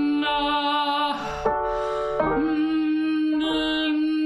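A woman singing long held notes on one steady pitch as a vocal warm-up exercise, changing vowel shape within the notes. The first note stops about a second in, there is an audible breath, and a second note at the same pitch starts just after two seconds and is held.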